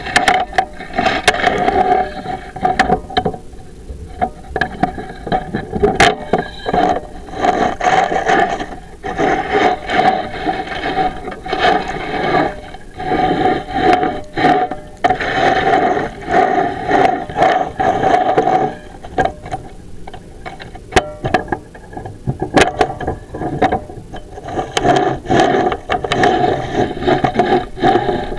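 Chimney inspection camera scraping and rubbing against the inside of a flue liner as it is pushed along, in irregular bursts with sharp clicks and knocks.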